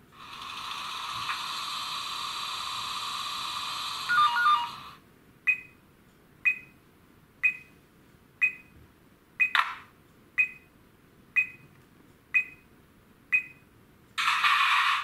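Sound decoder of a PIKO H0 model of the PKP EU07 electric locomotive, playing through the model's small speaker while it stands still. A steady hissing sound runs for about five seconds and ends with a few short beeps. Sharp, ringing ticks then follow about once a second, and a short burst of hiss comes near the end.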